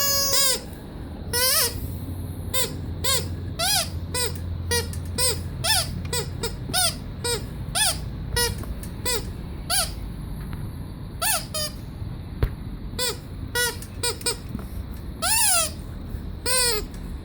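Rubber squeaky toy squeezed over and over: short squeaks about two a second, each rising and falling in pitch, with a few longer squeaks and a short pause partway through, over a steady low hum.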